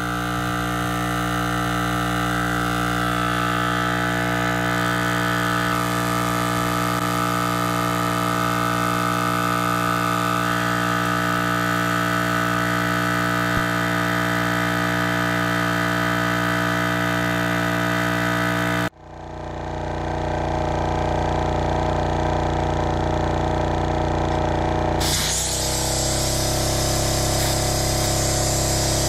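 A cheap 12-volt on-board air compressor runs steadily while it inflates a truck tyre from about 20 toward 35 PSI, a constant motor drone. The drone drops out abruptly about two-thirds through and builds back up, and a hiss joins near the end.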